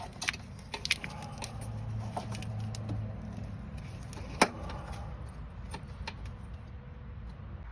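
Hands working in a riding mower's wiring: scattered small clicks and rattles, with one sharp click about four and a half seconds in, over a low hum.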